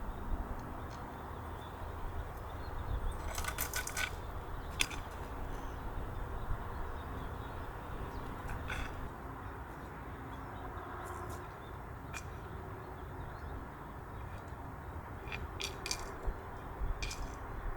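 Steady rain falling, with a few sharp ticks and clicks scattered through it.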